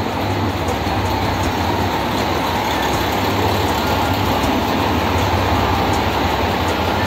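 Iyonada Monogatari sightseeing diesel railcar train moving past along the platform: a steady engine hum with running-gear and wheel noise, growing slightly louder.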